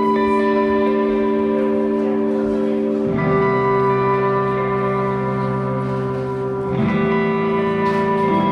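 Background music: slow, held chords that change about three seconds in and again near the end.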